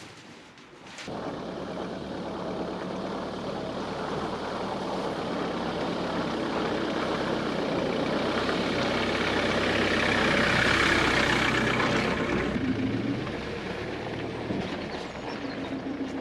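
A vehicle engine runs after coming in abruptly about a second in, growing louder to a peak about eleven seconds in, then easing off.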